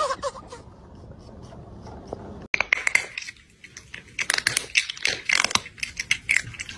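Crunchy chewing or munching sounds: a fast, uneven run of crisp crunches beginning about two and a half seconds in. A laugh trails off at the very start.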